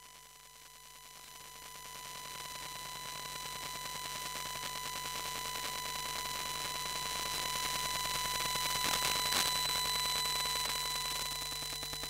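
Electromagnetic interference from a wifi router, picked up by a telephone pickup coil: a dense, fast-pulsing static buzz over several steady whining tones. It grows louder over the first few seconds and flares briefly about nine seconds in.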